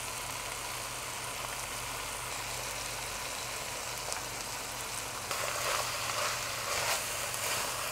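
Ground meat, onion and cabbage sizzling steadily in a pot on the stove. A little past halfway a wooden spoon starts stirring the mixture, making the sound louder and rougher.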